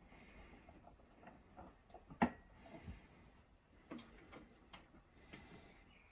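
Scattered faint clicks and knocks of coaxial cable and connectors being handled, the loudest about two seconds in, as a filter is put in line with an antenna feed.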